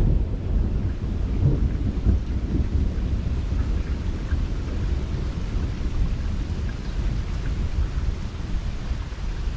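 Thunder rumbling low and long during a thunderstorm, with steady rain.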